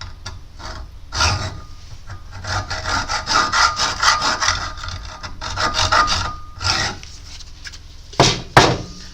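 Quick, repeated scraping and rubbing strokes as a pin from a Peugeot 307's front end is cleaned by hand, followed by two sharp knocks near the end.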